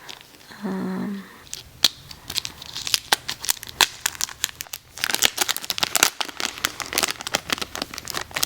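Packaging crinkling and crackling in quick, irregular snaps as a photocard is unwrapped by hand, with some tearing.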